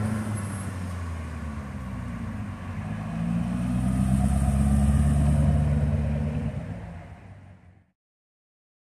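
Chevrolet Corvette C6's V8 engine running at low speed as the car drives past. It grows louder as the car comes alongside about four seconds in, fades as it moves off, and cuts off suddenly near the end.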